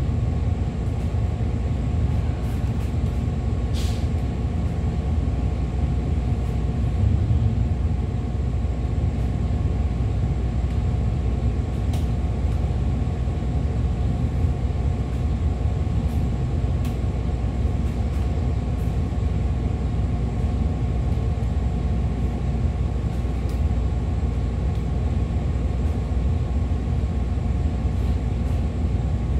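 Bus idling while stopped, heard from inside the cabin: a steady low engine rumble with a constant hum. A brief hiss about four seconds in.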